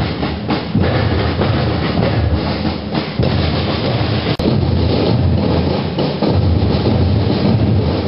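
School marching band's drum section playing a steady, driving march beat on snare and bass drums, loud and continuous.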